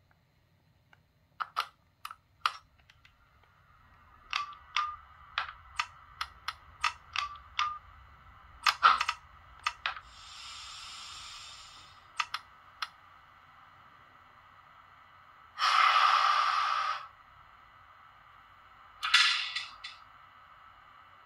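Start-up sound sequence of an ÖBB 4020 electric multiple unit, played by the H0 model's ESU LokSound 5 sound decoder through its small speaker. Relay and switch clicks come first, with a run of about two clicks a second. A steady electric hum sets in about three seconds in. A faint hiss follows around ten seconds, then a loud burst of air hissing around sixteen seconds and another shorter one near the end.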